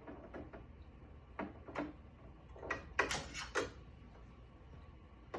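A small hand wrench working a screw on a Ricoma EM1010 embroidery machine: a handful of short, irregular clicks and knocks of metal tool on machine parts, the loudest cluster about three seconds in.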